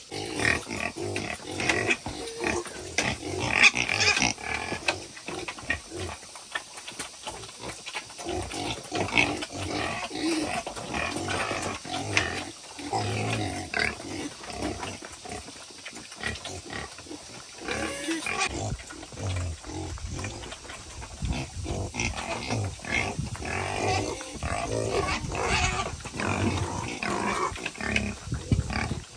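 Farmed wild boar grunting and calling without a break, with louder cries every few seconds.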